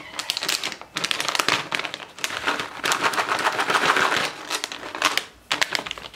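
Foil bag of Purina ONE dry cat food crinkling and rustling as a cat pushes its head into it: a dense run of crackles, loudest about three to four seconds in, with a brief lull near the end.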